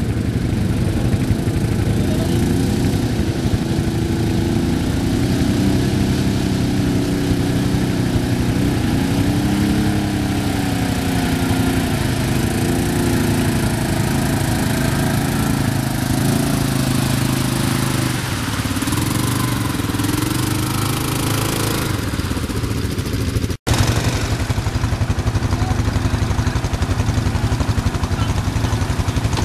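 CFMOTO ATV engine running as the quad is ridden through mud, its revs rising and falling. The sound cuts out for an instant about three-quarters of the way in, then the engine carries on.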